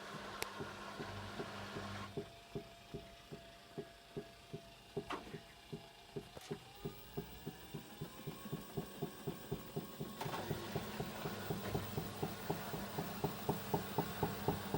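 Hyundai WME8410 washing machine speeding up into its spin cycle, with a rhythmic extraneous knock that quickens with the drum from about two to four knocks a second over the motor's rising whine. The knock is the fault noise heard in spin before the drum reaches top speed.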